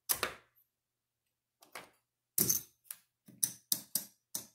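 Clay casino chips clacking together as they are counted out and stacked by hand. Two sharp clacks at the start, then a quick run of clacks from about halfway through.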